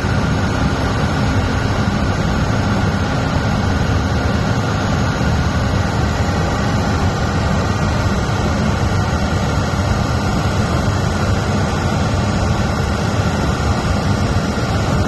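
Truck-mounted 70-meter concrete boom pump's diesel engine running, a loud, steady drone with a heavy low rumble.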